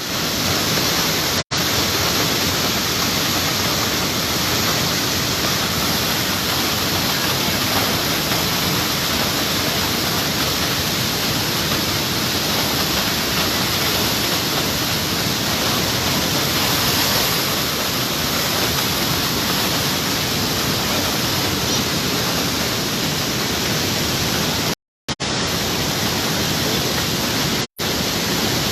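Waterfall's steady, loud rush of falling water, broken by a few momentary dropouts: one about a second and a half in and two near the end.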